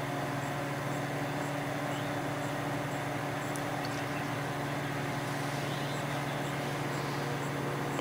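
Microwave oven running with a steady hum, a metal watch heating inside; a few faint clicks about three and a half seconds in.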